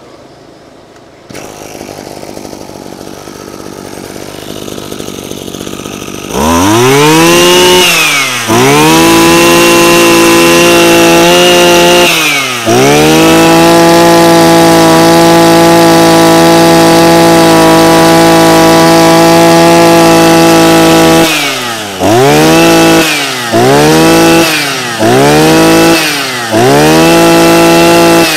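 Maruyama MB2630 brush cutter's 26 cc two-stroke engine idling low for a few seconds, then revved to full throttle: two short revs, one long hold of about eight seconds, then four quick throttle blips. Each rev falls back to idle. It is running very smoothly and quietly.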